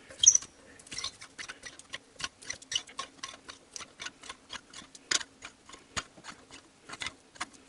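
Hand ratchet clicking steadily, about four clicks a second, as it turns an 18 mm thread tap back out of a freshly cut spark-plug thread in an aluminium cylinder head.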